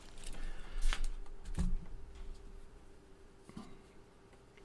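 Handling noise on a workbench: a few sharp clicks and knocks as the bare amplifier circuit board and its hook-up wire are moved, busiest in the first two seconds, then scattered small clicks over a faint steady hum.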